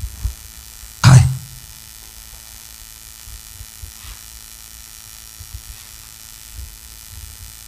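Steady electrical mains hum and low background noise from the sound system, with one short, loud sound about a second in.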